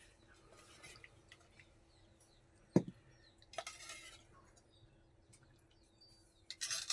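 Metal spoon clinking and scraping in an aluminium pot of mutton curry as it is ladled out, with one sharp clink about three seconds in and a few lighter clinks near the end.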